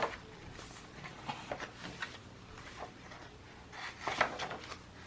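Paper pages and cardstock of a handmade junk journal being turned, with faint brief rustles and soft taps and a louder flurry of page rustling about four seconds in.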